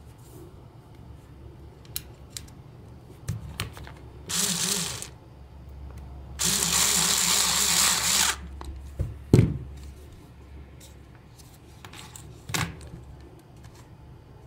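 Cordless electric screwdriver running in two bursts, a short one about four seconds in and a longer one of about two seconds, turning the screws that hold a toy game controller's circuit board. A sharp knock follows about nine seconds in, with a few light plastic clicks before and after as the controller's shell is handled.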